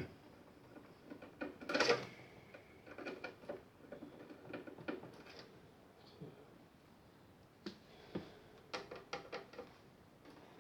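Light clicks and taps of a screwdriver and hands working on the plastic cabinet of a JVC DC-33 boombox, with a louder clatter about two seconds in and a quick run of clicks near the end.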